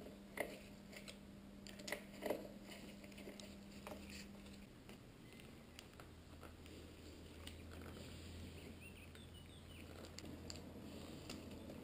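Faint handling noise of motorcycle wiring: gloved hands rustling cables and pressing plastic multi-pin connectors, with a few sharp clicks in the first couple of seconds and softer ticks and rustles after.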